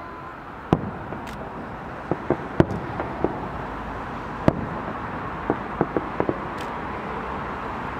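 Aerial fireworks shells bursting: about a dozen sharp bangs at uneven intervals, with a quick run of several in a row near the end, over steady background noise.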